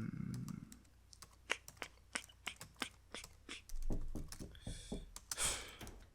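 Typing on a computer keyboard: irregular, quick keystroke clicks, with a couple of soft breathy noises in the second half.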